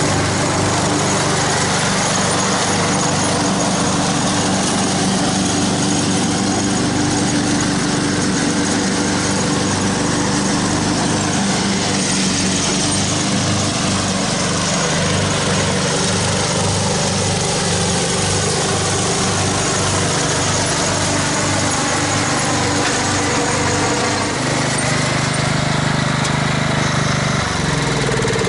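Old Craftsman riding lawn mower's engine running steadily with a regular throb as the mower drives over and mulches dry leaves.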